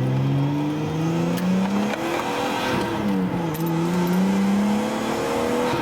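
Nissan R34 Skyline with an aftermarket Tomei exhaust accelerating through the gears. The engine note climbs, drops at a shift about two and a half seconds in, climbs again and drops at another shift near the end.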